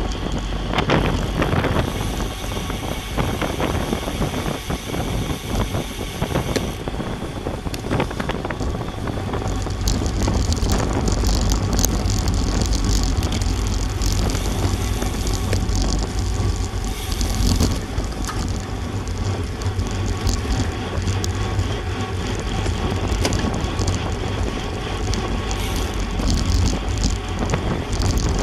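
Wind buffeting the microphone of a bike-mounted action camera, with tyre and road noise, as a road bike rides at racing speed in a pack of cyclists. The rush is steady and strongest in the low rumble.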